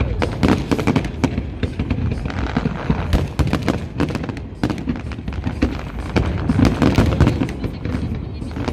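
Fireworks display going off: a rapid, irregular run of bangs and crackles.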